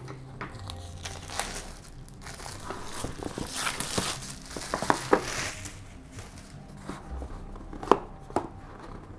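Clear plastic wrapping crinkling and rustling as it is pulled off and handled while a cardboard puzzle box is opened, busiest midway, with scattered light knocks of the cardboard and one sharp knock near the end.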